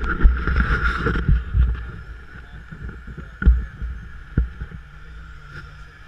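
Off-road vehicle engine running at low speed on a rock-crawling trail, under rumbling wind on the microphone, with two sharp knocks in the middle.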